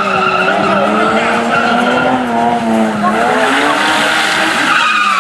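BMW 5 Series E34 drifting: tyres squealing in a steady high screech while the engine runs hard, its pitch rising and falling with the throttle.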